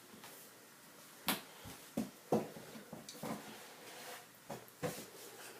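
Scattered sharp wet smacks and clicks of a small child's mouth sucking and chewing on a lemon slice, about five or six spaced a second or so apart.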